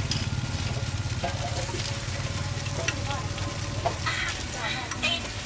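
Food sizzling as it fries in a hot pan, over a low steady rumble, with a few sharp clicks about three and four seconds in.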